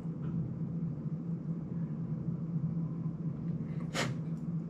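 Steady low room hum, with one short, sharp noise about four seconds in.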